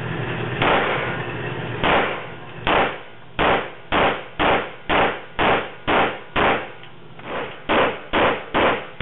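Pistol fired shot after shot on an indoor range, each report followed by a brief echo off the range walls. There are about fourteen shots: two spaced a second or so apart, then a steady run of about two a second, one of them noticeably quieter.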